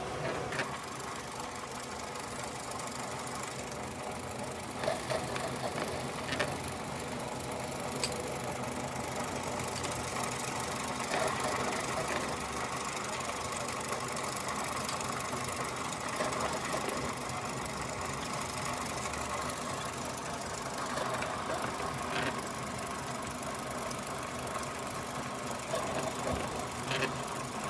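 Milling machine running steadily while cutting the teeth of a worm gear, with a few sharp clicks scattered through.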